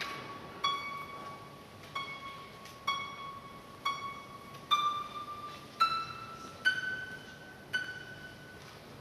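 Harp played one plucked note at a time, about one a second, each note left to ring. The slow line climbs step by step in the harp's upper register.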